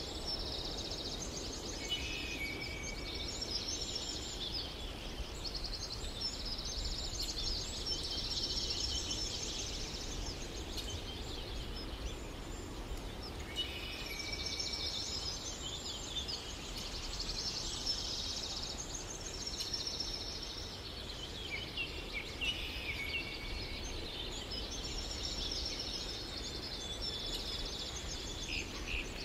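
Birds singing: dense, high twittering and trilling phrases, each a few seconds long with short pauses between, over a steady low hiss.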